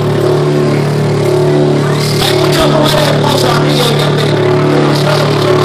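Loud live reggaeton concert music from the stage PA, dominated by a steady, held low synth tone.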